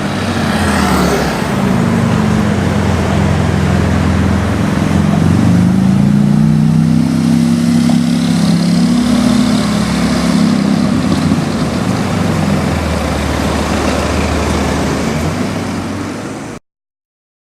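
Engine of a tuned Porsche 991 Turbo S Cabriolet, a twin-turbo flat-six: its note rises over the first few seconds, holds, then falls away and fades, ending abruptly shortly before the end.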